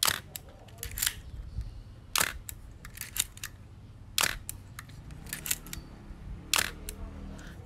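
Olympus OM10 35 mm SLR shutter being fired again and again, a sharp click every second or two with smaller clicks of the mechanism between them. The owner finds that the shutter fires at the same speed whatever the setting, and thinks it needs calibrating.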